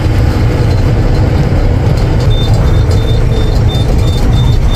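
Goods truck driving, heard from inside the cab: a steady, loud run of engine and road noise. About two seconds in, a short high beep starts repeating about three times a second.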